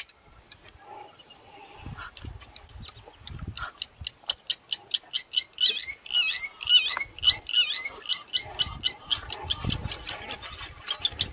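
Wild animal calls: a fast run of short, high calls, several a second, starting about four seconds in, some of them wavering in pitch. Low rumbles can be heard underneath.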